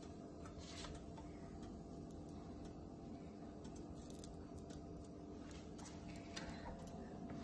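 Faint rustling and light taps of flatbread being handled and set on an electric contact grill, over a low steady hum.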